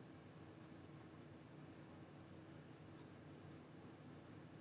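Fine nib of a Penbbs 500 fountain pen writing on lined notebook paper: faint, irregular scratching of the pen strokes as words are written.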